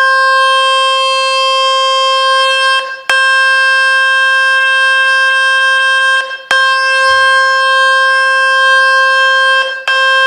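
A phone speaker-cleaning tone from the Fix My Speaker website: a loud, steady buzzing tone rich in overtones, played at full volume to shake water and dust out of the phone's speaker. It cuts out for a moment about every three and a half seconds.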